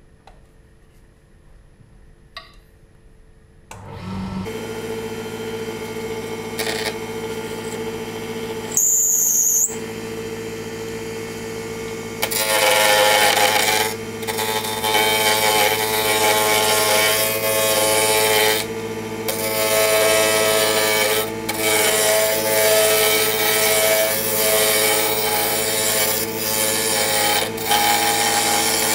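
Wood lathe switching on about four seconds in and spinning up to a steady hum at full speed, with a brief high squeal around nine seconds. From about twelve seconds a carbide cutter roughs a square zebrano pen blank down to round, a loud scraping cut with short pauses as the tool is lifted and moved.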